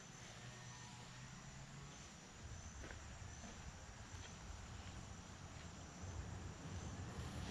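Faint rural outdoor ambience: insects chirping in a quick, evenly repeating pattern, with the low rumble of an approaching vehicle building from about halfway through.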